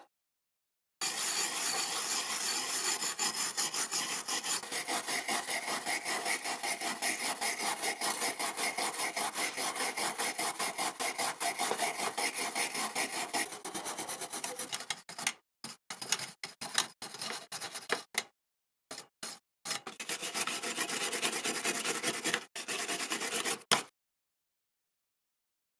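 Fast back-and-forth abrasive rubbing strokes on a small hard part. They start about a second in, run steadily, then break into short runs with gaps and stop near the end.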